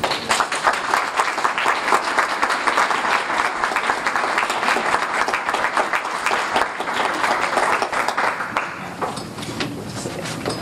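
Audience applauding, with many hands clapping densely, then thinning out to scattered claps about nine seconds in.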